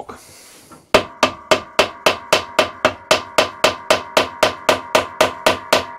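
A hammer taps rapidly on a seized steel bolt on a Hayter Harrier 41 mower, about four light blows a second with a metallic ring, starting about a second in. The bolt is being shocked to free it so it can be undone without shearing.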